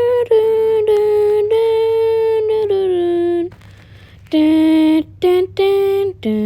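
A child singing a wordless tune in long held notes that step down in pitch, with short breaks between them, then a few shorter notes.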